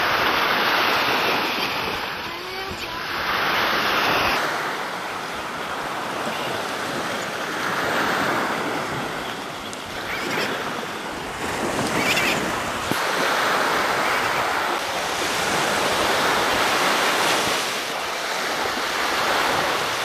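Sea waves breaking on the shore, a rushing wash that swells and ebbs about every four seconds.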